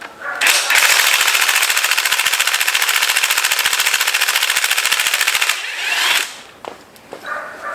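Impact wrench rattling in one continuous run of about five seconds, a rapid even hammering, undoing a fastener on a 13B rotary engine being torn down.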